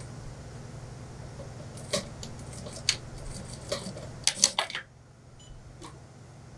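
Industrial lockstitch sewing machine stitching suit-trouser cloth, a steady running hum with several sharp mechanical clicks. The loudest clicks come in a cluster just before the running noise drops away, about five seconds in.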